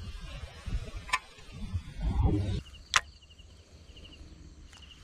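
Rumbling wind and handling noise on the microphone, with two sharp clicks, the second about three seconds in. A faint, rapidly pulsed high chirping runs through the second half.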